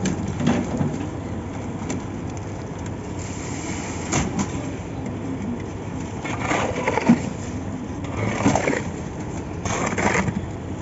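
Concrete-pour site noise: a steady mechanical running sound with intermittent scraping and knocking, a few of them louder, about four seconds in and again in the second half.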